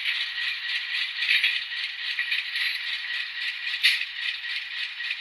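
Sound effects from the LokSound decoder of an N scale GE Dash 9 model, heard through its tiny speaker: a steady, fast-pulsing hissing rattle of air sounds, with a sharp click about four seconds in.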